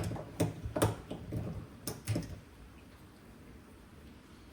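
About five sharp clicks and knocks over the first two seconds, from a small window lock being pressed and worked into place on the window frame. Then only faint background.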